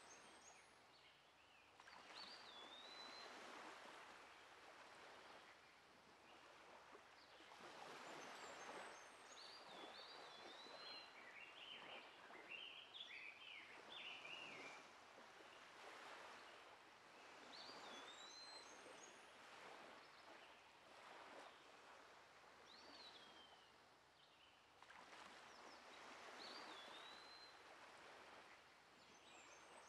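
Faint ambience of birds chirping, with short whistled calls that rise and fall, over a soft rushing noise that swells and fades every several seconds.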